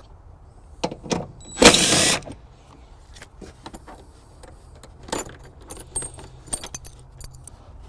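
Scattered small clicks and clinks of hand tools and plastic trim, with one louder rasping scrape of about half a second near the two-second mark, as a flathead screwdriver is worked at the plastic cover of a cargo hook.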